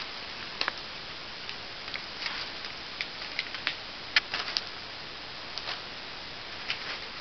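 Light, irregular crinkles and ticks of crumpled wrapping paper as a ferret and cat play in it, over a steady hiss.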